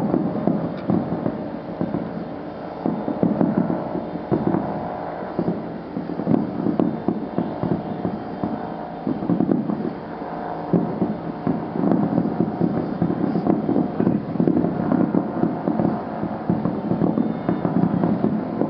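Fireworks going off in a dense, continuous barrage of rapid bangs and crackles with no let-up.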